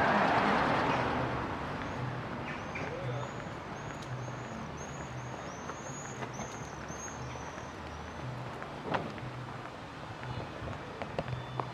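A passing vehicle's noise fades away at the start. Then, for a few seconds in the middle, a small songbird gives a run of high, repeated chirps.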